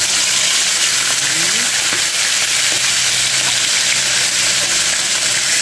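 Whole fish frying in hot oil in a pan: a steady, continuous sizzle of oil bubbling around the fish.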